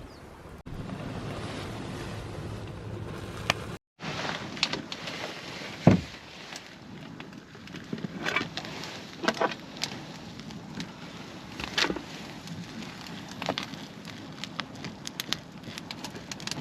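A steady rushing noise for the first few seconds, then, after a brief cut, a wood campfire crackling with scattered sharp pops, the loudest about six seconds in.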